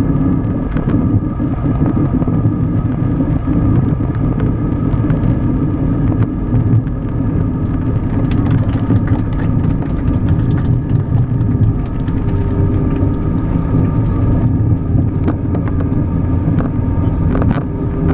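Cabin noise of an Airbus A320-family airliner rolling out on the runway after touchdown, spoilers up. A steady rumble of engines and wheels runs under a few thin whining engine tones, with brief rattles now and then.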